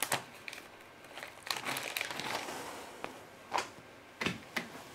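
Soft crinkling and rustling from a filled tortilla wrap being handled and folded on a cutting board, with a few light knocks scattered through.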